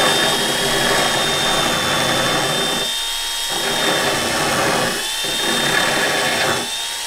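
Electric drill running steadily, spinning a rotary thread repair cutter that grinds along a bolt's damaged threads to clean them up. The grinding noise drops briefly about three seconds in, again about five seconds in, and near the end.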